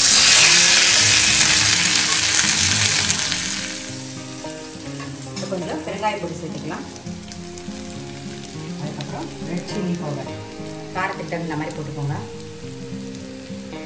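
Hot oil sizzling loudly as boiled potato cubes are tipped into a kadai of tempered mustard seeds, urad dal and curry leaves. The sizzle dies down after about four seconds to a soft frying sound.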